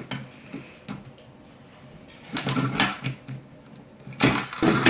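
Plastic toy crane and bulldozer being handled, its parts clicking and rattling in short clusters, louder about halfway through and again near the end.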